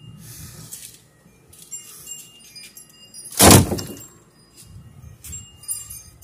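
A broken piece of plywood dropped into a plastic wheelie bin, landing on other wood scraps with one loud clatter a little past halfway through. Lighter scuffs and handling noise come before and after it.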